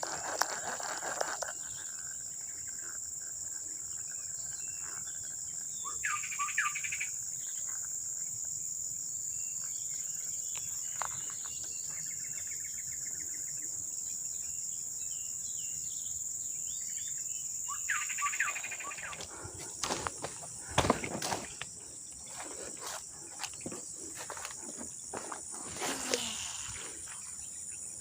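Steady high-pitched chirring of insects such as crickets. Two short sounds come about 6 and 18 seconds in, and a few sharp clicks and knocks fall in the last third.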